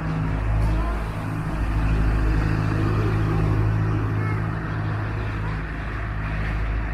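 A steady, low machine hum that holds one pitch throughout, like an engine or large fan running.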